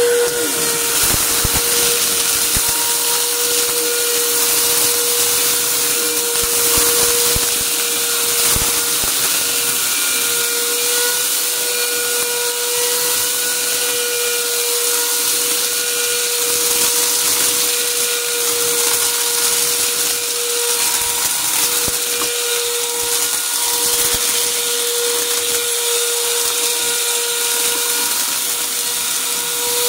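Upright vacuum cleaner running steadily on carpet, its motor holding one constant hum over a high rushing hiss, with scattered crunches and clicks as bits of debris are sucked up.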